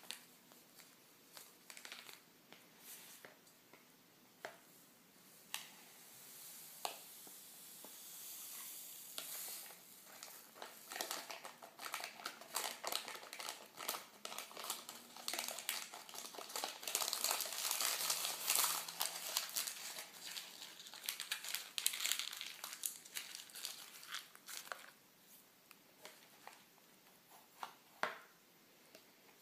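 Paper wrapper crinkling and crackling as a jelly tablet is unwrapped and broken into pieces, with scattered crackles at first and a dense run through the middle. A single sharp click near the end, as a spoon touches the bowl.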